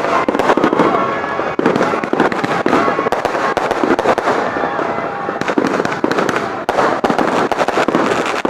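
Fireworks going off in rapid succession: a dense, unbroken stream of cracks and pops.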